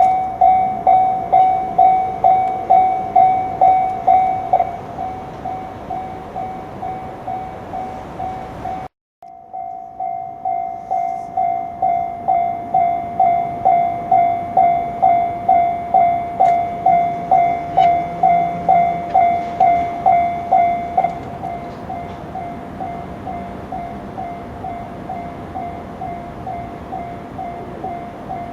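Japanese railway level-crossing warning bell ringing in an even ding-ding rhythm, about two strikes a second on one high tone, sounding as a train approaches or passes. The strikes grow quieter a few seconds in, break off briefly about nine seconds in, come back loud, and drop quieter again in the last part.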